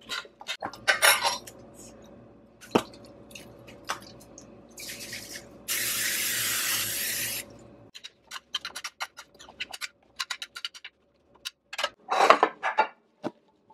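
A metal spoon clinks and scrapes against a glass baking dish as halved Brussels sprouts are tossed. Then an aerosol olive-oil cooking spray hisses, a short burst followed by a longer one of about a second and a half. Light clicks follow, and a louder clatter comes near the end.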